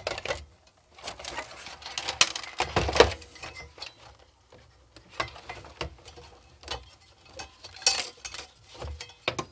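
Irregular clicks, knocks and rattles of plastic and metal parts being handled: a moulded plastic housing lifted away, then a finned heatsink assembly gripped and worked at while its wiring is caught.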